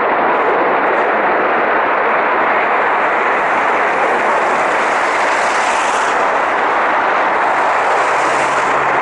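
Gas burning as it escapes from a failed gas pipeline: a loud, steady rushing noise that does not let up.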